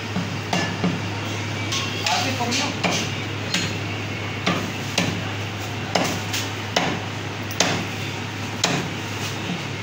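Butcher's cleaver chopping mutton on a round wooden chopping block: about a dozen sharp chops, irregularly spaced at roughly one a second, over a steady low hum.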